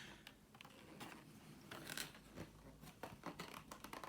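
Faint handling noises of board game components: light clicks and short rustles of cards and packaging being moved, with a longer rustle about two seconds in.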